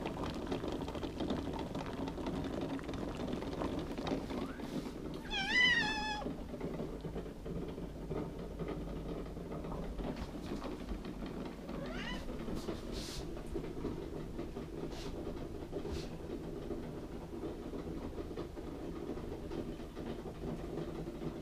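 Domestic cat meowing: one loud, wavering meow about five seconds in, and a fainter rising meow around twelve seconds, over a steady low background noise.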